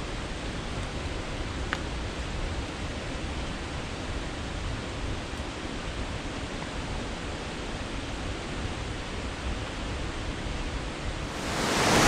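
A steady, even rushing noise with no distinct events apart from one faint click about two seconds in. It grows louder and brighter just before the end.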